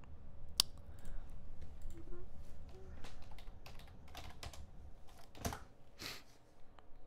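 Typing on a computer keyboard: a scatter of quick key clicks, with two louder clacks about five and six seconds in.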